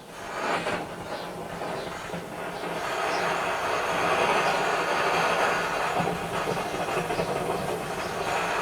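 Radius paraffin blow lamp burning under pressure: a steady hissing roar of the burner flame that starts suddenly and builds in loudness over the first few seconds, then holds.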